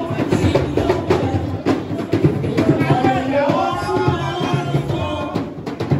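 Loud dance music driven by heavy drumming, with a singing voice coming in over it about three seconds in.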